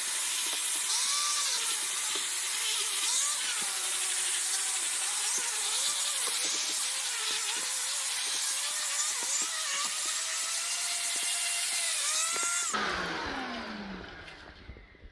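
Shark AZ910UKT vacuum cleaner running with its pet tool, a loud rushing of air with faint whistles that waver in pitch as the tool moves. Near the end it is switched off and the motor winds down with a falling whine.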